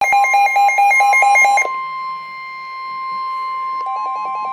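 Emergency Alert System alert tones: a rapid beeping that alternates between two pitches over a steady tone for about a second and a half, then the steady tone alone, with the alternating beeping coming back near the end.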